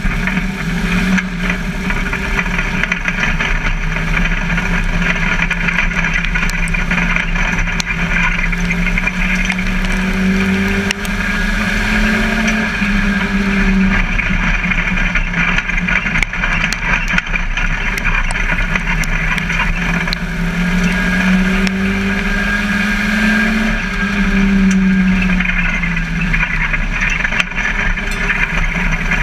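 Ministock race car's engine heard from inside the cockpit, running hard under race load. Its pitch twice climbs and drops back, over a steady drone and rattle.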